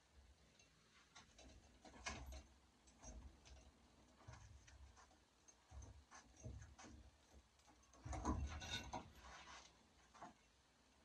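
Quiet handling sounds of a raccoon being skinned on a hanging gambrel: scattered rubs, clicks and soft knocks as the hide is pulled and worked, loudest in a cluster of knocks and clicks near the end.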